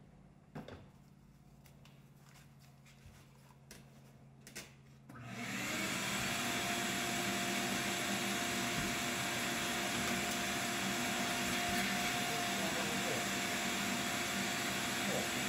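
Shop vacuum switched on about five seconds in, then running steadily with a constant motor whine. Before it only a few faint taps.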